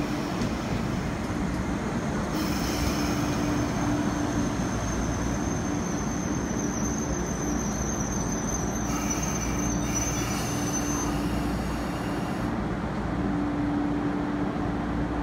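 MTR East Rail Line MLR (Metro-Cammell) electric multiple unit moving slowly alongside the platform and coming to a stop, with a steady low hum. A high whine comes in about two seconds in, sinks a little in pitch as the train slows, and dies away about eleven seconds in.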